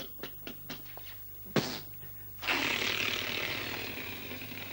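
A sharp click, then a rushing whoosh sound effect that starts suddenly about two and a half seconds in and fades slowly.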